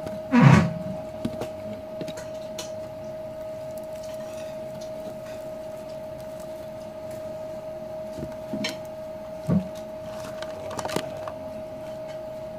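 A person eating with bare hands from a plate: quiet chewing and the small clicks and rustles of fingers picking at rice and food, over a steady high-pitched hum. A brief louder thump comes about half a second in, with a few smaller ones near the end.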